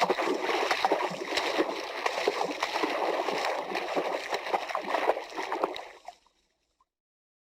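Water splashing and churning, with many small splashes and drips over a continuous wash. It starts abruptly, lasts about six seconds, and fades out.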